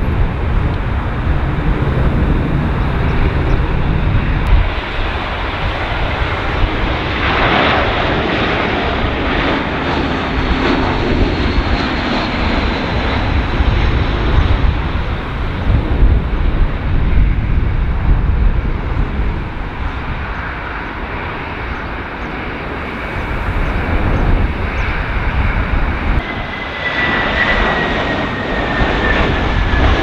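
Jet airliner's engines heard on landing approach, a steady noise with a thin whine that slowly falls in pitch late on, over gusty wind rumble on the microphone.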